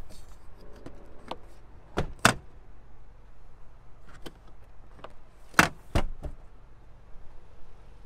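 Rear seatbacks of a 2020 Acura RDX released one at a time with the cargo-area levers and dropping flat, each giving a pair of sharp thumps after a few light lever clicks. The second pair, about five and a half seconds in, is the louder.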